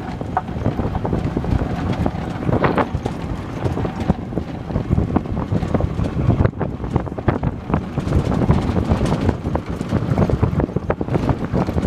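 Golf cart driving along a gravel road: wind buffeting the microphone over the steady rumble and jolting of the tyres on the gravel.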